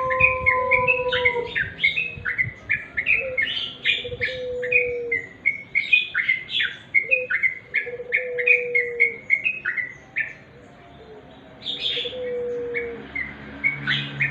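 Yellow-vented bulbuls (trucuk) calling: rapid, overlapping chirps, with a lower held note sounding several times and a short lull about ten seconds in.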